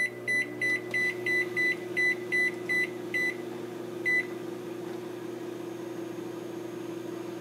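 Microwave oven keypad beeping at each button press, about three short high beeps a second for three seconds, then one more beep a second later, over the steady hum of the oven running.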